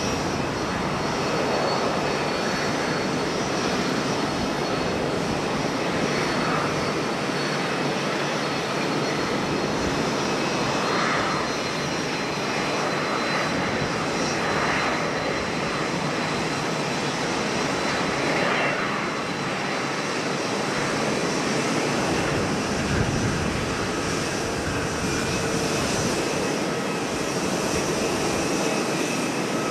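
Jet airliner engines running steadily at a distance, a continuous rushing noise with a faint high whine, as a Boeing 737-800 taxis and lines up for takeoff.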